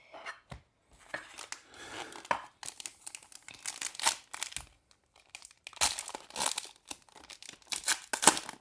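A foil trading-card pack wrapper from a Panini Prizm pack being torn open and crinkled, in several bursts of ripping and crackling.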